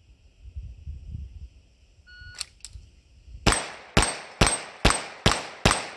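A shot timer beeps once. About a second later a handgun fires six quick shots, evenly spaced about half a second apart, at a rack of six-inch steel plates.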